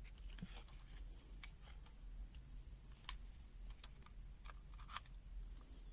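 Faint, scattered clicks and taps from handling a pen-type digital multimeter and its test leads, a few separate ticks over a low background hum.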